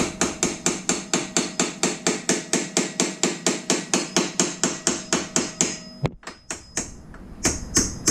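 Hammer tapping a brake pad retaining pin out of a Mustang's brake caliper: quick, even metal-on-metal strikes, about four a second, with a faint ring. The taps stop briefly about six seconds in, then a few more follow.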